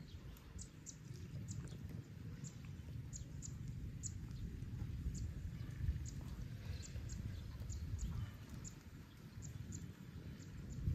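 Wind rumbling on the microphone, with short, faint high-pitched chirps repeating irregularly about once or twice a second.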